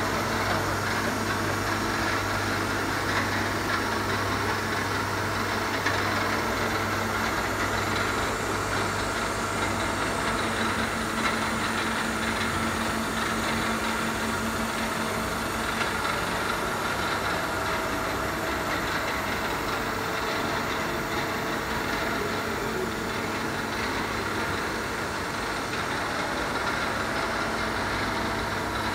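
Steady hum of a powered-up Mighty Comet VMC-2000G CNC vertical bridge mill, a low drone with a higher whine over it.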